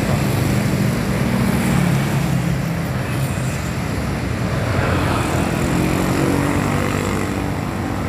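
Diesel bus engine running as the bus pulls away, over steady road noise, with an engine note rising about five seconds in.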